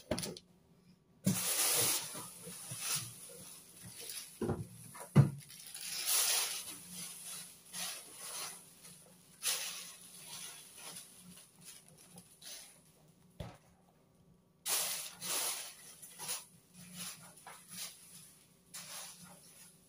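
Plastic bags rustling and crinkling in irregular bursts as items are handled and unwrapped, with a couple of dull knocks about five seconds in.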